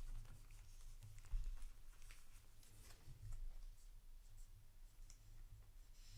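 Faint handling of trading cards: light scratchy rustles and small clicks as cards are slid and sleeved, over a low steady hum.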